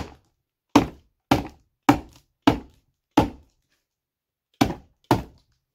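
A large knife blade struck down onto a taped cardboard shipping box about eight times in irregular succession, each a sharp short blow into the cardboard, as the blade is driven through the packing tape.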